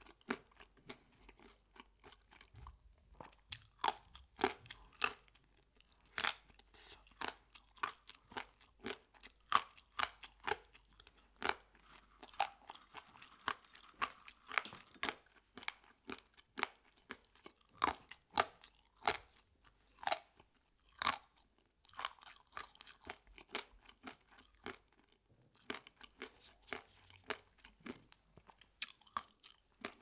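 Close-miked crunching and chewing of thin crispy fried strands: irregular sharp crunches, often one or two a second, with a few short pauses.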